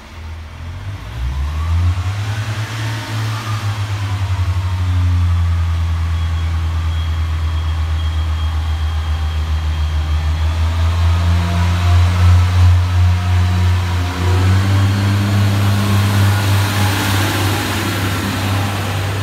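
Pacer railbus's underfloor diesel engine revving up as the train pulls away, then running in a steady drone. It changes note about two-thirds of the way through.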